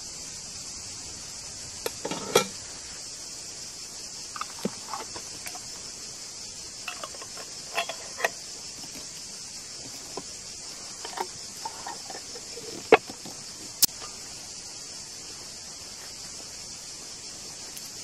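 Glass jars, a metal ladle and spoons clinking and knocking on a table now and then, a few of the clinks sharp and loud. Behind them runs a steady, high-pitched chorus of insects.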